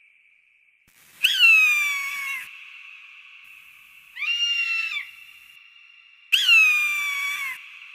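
Hawk calling: three harsh screams, the first and last long and falling in pitch, a shorter one between them.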